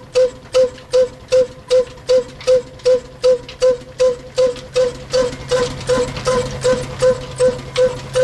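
Old Ruston single-cylinder stationary diesel engine running slowly and steadily. Its tall exhaust stack gives an even, ringing pop about two and a half times a second over a low mechanical hum.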